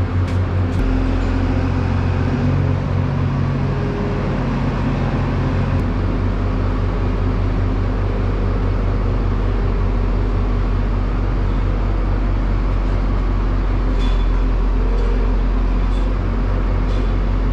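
Wheel loader's diesel engine running close by, stepping up in pitch about a second in and shifting again around six seconds as the loader lifts its bucket up to the barn door.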